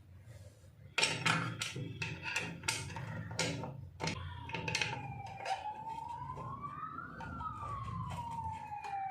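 Small metal clicks and taps as the drain screw is fitted back into an industrial sewing machine's oil pan. From about four seconds in, a siren wails outside, slowly falling and rising in pitch.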